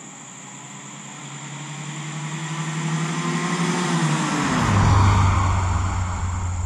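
A 1978 Datsun 210 driving past. Its engine and exhaust grow louder as it approaches, the engine note drops in pitch as it goes by about four and a half seconds in, and it fades to a low drone as it drives away.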